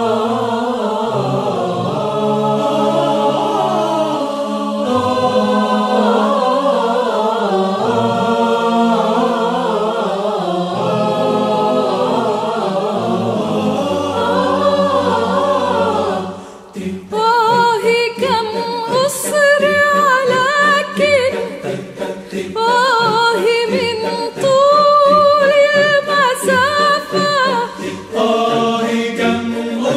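Mixed choir singing a cappella in close harmony, its low voices holding long notes under moving upper parts. About halfway through, the sound thins for a moment. Then a single voice with vibrato carries the melody over short, rhythmic choir chords.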